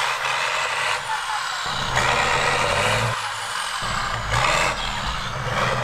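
Eight-wheeled off-road trial truck's engine running hard under load as it crawls through deep mud, its note swelling and easing, with a faint high whine that rises and falls.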